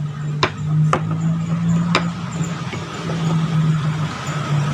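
A low engine drone running steadily, dropping out briefly twice, with three sharp taps in the first two seconds.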